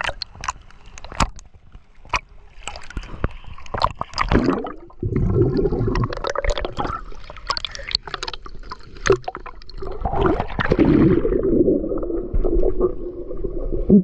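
Sea water splashing, sloshing and gurgling around a waterproof camera's microphone as it dips through the surface. Near the end the camera goes under and the sound turns dull and muffled.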